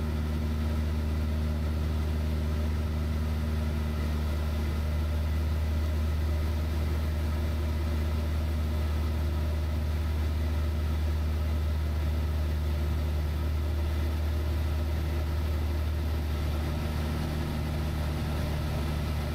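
Van's RV-7's piston engine and propeller droning steadily in flight, heard from inside the cockpit.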